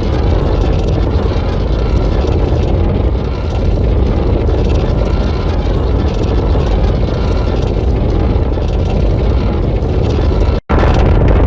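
A Godzilla sound effect from the 2021 Godzilla vs. Kong set: a loud, continuous, heavy rumbling noise, mostly low with a hissing top. It cuts out abruptly for an instant about ten and a half seconds in, then resumes at full strength.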